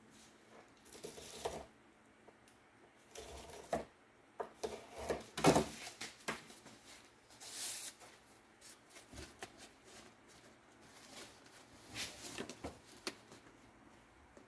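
Stiff cardboard being handled and fitted against a UTV's roll cage tubing: scattered rustles, scrapes and knocks at irregular moments, the loudest about five and a half seconds in.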